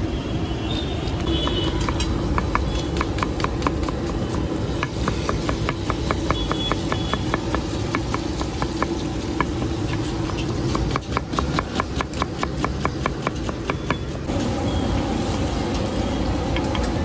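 Knife chopping onions on a wooden cutting board: rapid, regular clicks at about four a second, over steady street-traffic noise.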